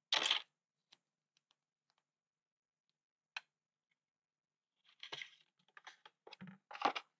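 Plastic and two-way carpet tape being handled and cut: a short scratchy rustle, a couple of single clicks, then a run of quick scratchy rustles near the end.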